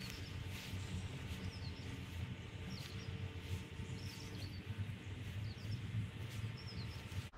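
Small songbirds chirping, short calls repeated every second or so, over a low steady rumble.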